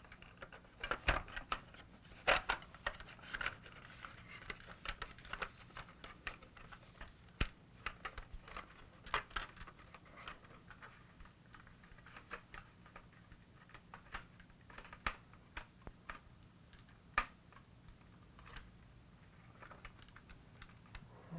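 Scattered clicks and taps of small plastic parts being handled and pressed into place: a switch and its clip being worked into the plastic body of a toy car.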